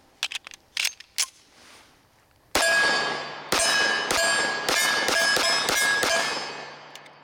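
A few metallic clicks as a magazine is seated in a 1911 Commander pistol, then about eight .45 ACP shots in quick succession from about two and a half seconds in. Each shot is followed by the clang of a steel target ringing on one steady pitch.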